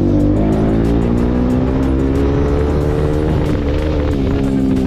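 Single-cylinder Bajaj Pulsar RS200 engine running while being ridden just after an oil change. Its pitch rises and falls gently. Background music with a steady beat plays along.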